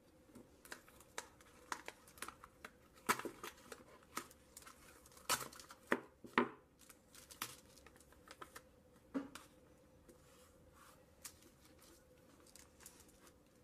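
Blue painter's tape being pulled off its roll and pressed around a box of 18650 cells: irregular short rips and crinkles, busiest in the first half, over a faint steady hum.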